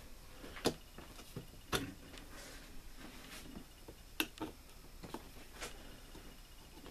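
A few light, scattered clicks and taps, about five over several seconds, from hands handling a small Arksen portable washing machine as it is set up for a rinse cycle.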